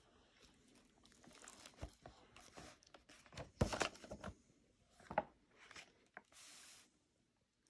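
A hardcover picture book being opened by hand: the cover and first pages turned over with a string of paper rustles and crinkles, loudest about halfway through, and a short steady swish of a page sliding near the end.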